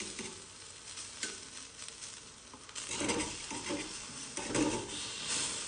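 Takoyaki batter sizzling in a takoyaki pan over a gas flame, with a metal pick scraping and clicking against the pan as the overflowing batter is tucked into the wells. The scraping gets busier about halfway through.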